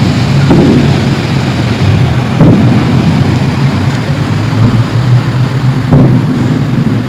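Loud, low rumbling drone with a steady low hum and a few swells, the kind of eerie sky sound reported worldwide and often likened to trumpets.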